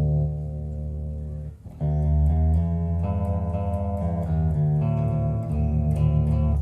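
Electric bass guitar played through a Fender Rumble LT25 bass combo amp. A held low note dies away, and after a short break a line of new plucked notes follows, with small string clicks.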